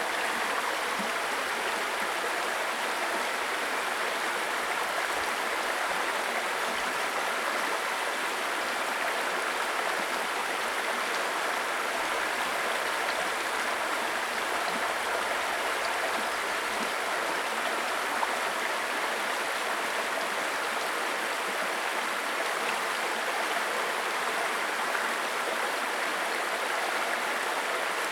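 Babbling brook: shallow stream water running and burbling steadily over stones.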